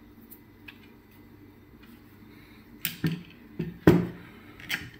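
Microscope parts being handled and set down on a desk: a few faint ticks, then four sharp knocks and clatters in the last two seconds, the loudest about four seconds in.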